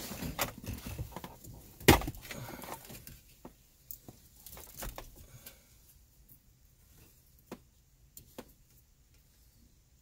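Plastic clicks and rustling of wires as electrical connectors on a car's dashboard wiring harness are handled and unplugged, with one sharp click about two seconds in and scattered lighter clicks after.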